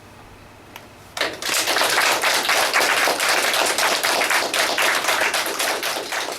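Audience applause starts suddenly about a second in: many people clapping densely and steadily.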